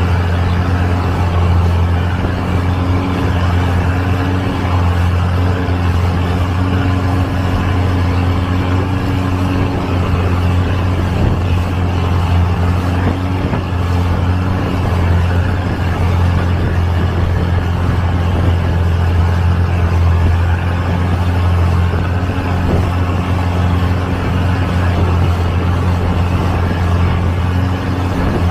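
Long-tail boat's engine, a repurposed car or truck engine, running steadily with a deep, even drone.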